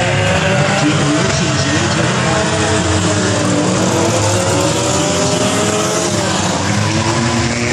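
Several figure-8 stock cars racing together, their engines revving with pitches rising and falling, and tires squealing.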